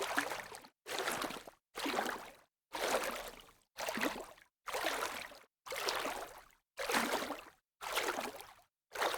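Light water splashes, about one a second, each starting sharply and fading out, with silence in between.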